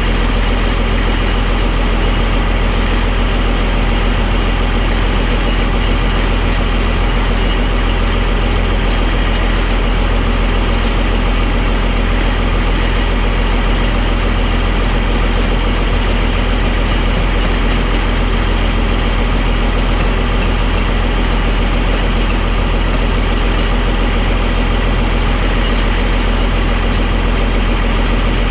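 Caterpillar D6D bulldozer's six-cylinder diesel engine idling steadily, still cold, shortly after a cold start.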